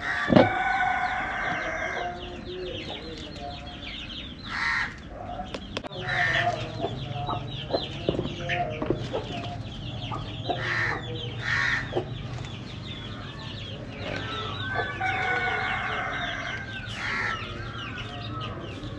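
Chickens clucking around a poultry pen, with a couple of longer drawn-out calls like a rooster crowing, and many short high peeps going on throughout.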